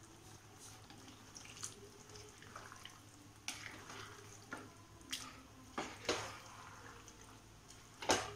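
Plastic spatula stirring a thick, wet chicken curry in a nonstick frying pan: scattered soft, wet scrapes and taps against the pan, more of them from a few seconds in and the loudest near the end, over a faint steady low hum.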